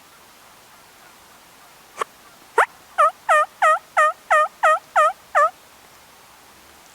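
A run of about eight loud turkey yelps, evenly spaced at roughly three a second, each note dipping and rising in pitch, after a sharp click and a single short sweeping note.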